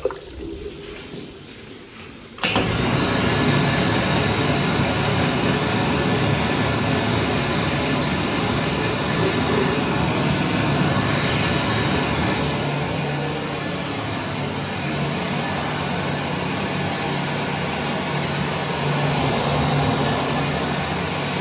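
WDWH Model A warm-air hand dryer switching on about two and a half seconds in, then running steadily with a fan rush and a low motor hum.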